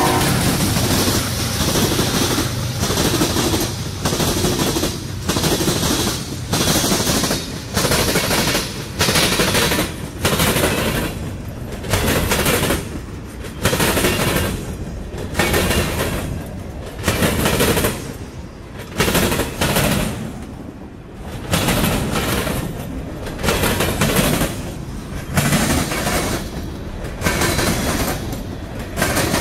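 Freight train of covered hoppers and tank cars rolling past close by. Its wheels strike over the rail joints in a steady beat of sharp clatters, a little more than one a second, over a continuous rumble.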